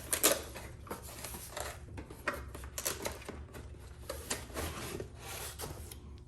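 Packaging being handled and opened: irregular rustling and scraping as the M12 charger and battery kit is unpacked.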